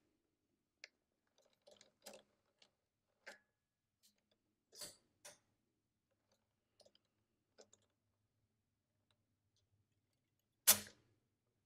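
Faint, scattered metallic clicks from the internal linkage of a Lindström Record mechanical calculator as its input-register clearing lever is worked by hand, with one sharper clack about a second before the end.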